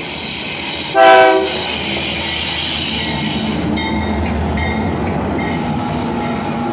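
A diesel freight locomotive's air horn gives one short, loud blast about a second in. The iron-ore train then keeps passing, a steady rumble of locomotive engines and steel wheels on the rails.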